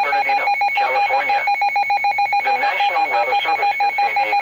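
Emergency alert beeping: an electronic alert tone at two pitches, pulsing rapidly on and off without a break, with a voice reading the warning underneath it.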